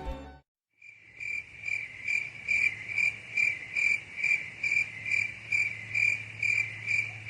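Cricket chirping: a high chirp repeated evenly about two and a half times a second, starting about a second in.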